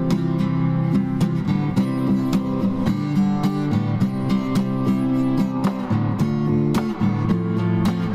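Background music: steady acoustic guitar, plucked and strummed.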